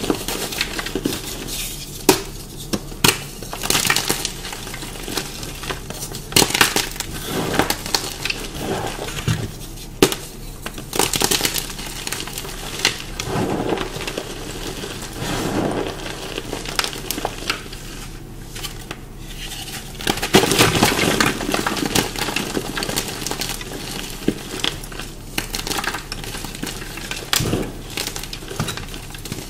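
Dyed blocks of chalk being bitten and chewed up close: sharp, irregular crunches and cracks between stretches of gritty grinding. This chalk has been dyed and pasted, which makes it crunchier and dustier than plain chalk.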